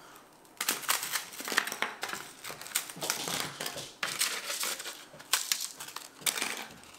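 Freeze-dried bread slices, now dry and crisp, crunching and crackling as they are broken apart by hand. The crunching comes in repeated bursts, starting about half a second in.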